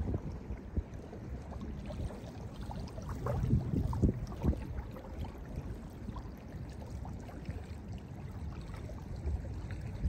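Small lake waves lapping and washing onto a sandy shore, the splashes loudest about three to four and a half seconds in.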